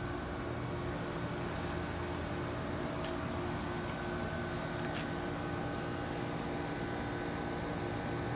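Outdoor heat pump units running: a steady mechanical hum of compressors and condenser fans, with several held tones over a whooshing noise and a faint tick or two.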